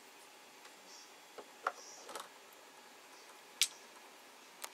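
A few light clicks and taps of hard plastic parts being handled, the sharpest about three and a half seconds in, over faint room noise.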